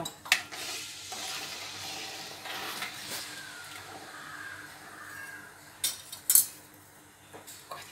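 Metal spoon stirring sugar syrup heating for a one-and-a-half-thread consistency in a steel kadai, scraping and clinking against the pan, with a steady hiss. There is a clink just after the start and two sharp clinks about six seconds in.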